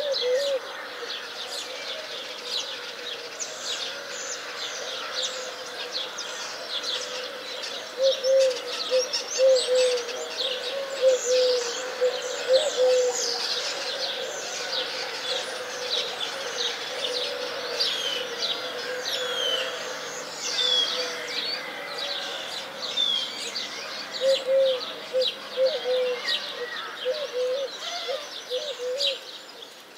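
Many birds chirping and twittering in a dense chorus, with a lower, wavering call repeating through the middle and again near the end.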